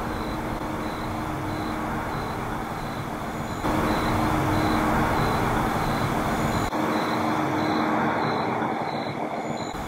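A faint breathy rush of noise rises out of a steady hiss about four seconds in, lasts about three seconds and then drops away. It is highlighted as an unexplained breath. A high, evenly spaced chirping pulse runs about twice a second throughout.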